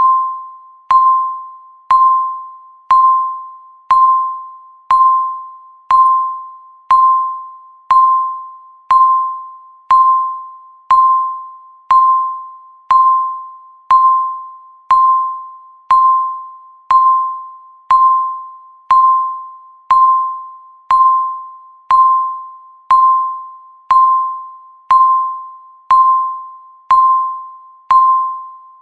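Countdown timer's ticking sound: one short, ringing tick every second, each a click with a clear mid-pitched tone that fades quickly, perfectly even.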